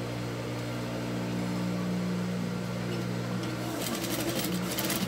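Industrial sewing machine humming steadily with its motor running, then, about three-quarters of the way through, stitching in a fast run of rapid needle ticks.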